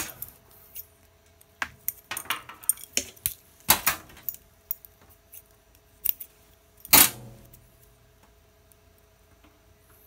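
Lineman's scissors and Cat5e cable being handled, with a run of small metallic clicks and clinks. About seven seconds in there is one sharp, louder snip as the scissors cut into the cable jacket.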